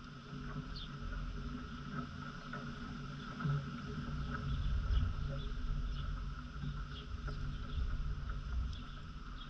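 Outdoor yard ambience: a low, uneven rumble is the loudest sound, under a steady high hum and scattered faint, short bird chirps.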